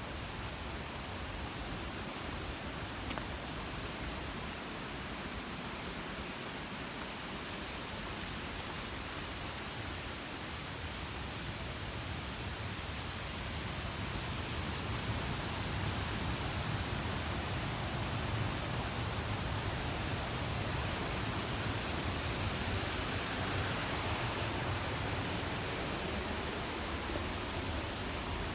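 Waterfall rushing as a steady, even roar of falling water, growing a little louder and deeper about halfway through.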